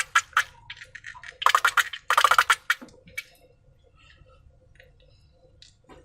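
Slime being squeezed and worked by hand, making rapid sticky clicking crackles in two short bursts about a second and a half and two seconds in, then only faint scattered clicks, with a soft knock at the end.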